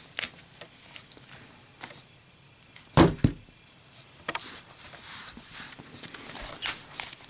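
A lit Zippo lighter with a glued-on diamond-plate emblem dropped in a drop test, landing with one sharp knock about three seconds in, the loudest sound. A few smaller clicks and taps come before and after it.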